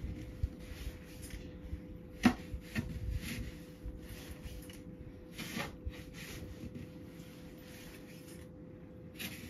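Irregular scraping and rubbing sounds with one sharp knock about two seconds in, fading to quieter scrapes later, over a faint steady hum.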